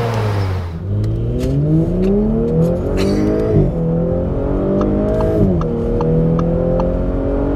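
Audi S5's 3.0 TFSI turbocharged V6 accelerating flat out from a standstill through its 8-speed Tiptronic, heard from inside the cabin. The engine note climbs from about a second in, drops sharply at the shift into second about halfway, climbs again and drops at the shift into third, then rises slowly.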